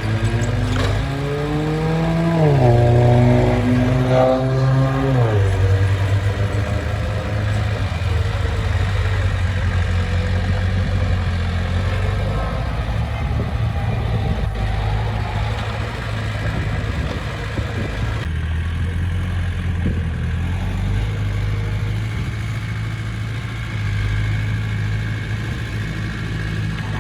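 Heavy-equipment diesel engine revving up over the first couple of seconds, holding high, then dropping back about five seconds in and running on steadily.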